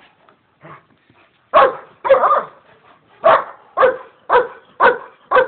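German shepherd barking repeatedly at a jute bite roll held in front of it during bite training. The barks start about a second and a half in and settle into a steady run of about two a second.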